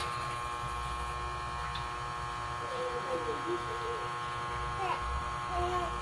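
Steady electrical mains hum with a buzzing edge, at an even level throughout.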